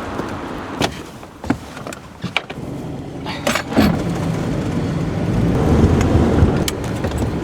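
A car: a few clicks and knocks, then a steady low engine and road rumble that swells about six seconds in as the car gets going.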